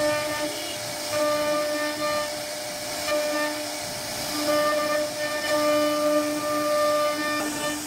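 CNC router spindle whining at one steady high pitch as its bit carves a wooden door panel, over the hiss of the cut. The whine strengthens and drops away several times as the bit moves through the wood.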